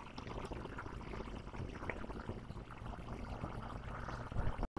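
Faint room noise with a low steady hum and a few light handling ticks as craft materials are moved on the table. The sound cuts out completely for an instant near the end.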